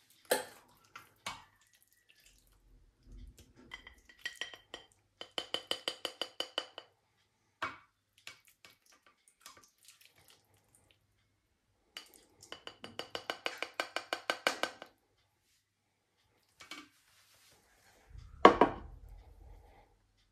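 Black plastic slotted spatula scraping and knocking against a ceramic baking dish and a china plate while a pasta gratin is served. There are two runs of quick scraping strokes, about seven a second, with ringing tones and scattered clinks, and a heavier knock near the end.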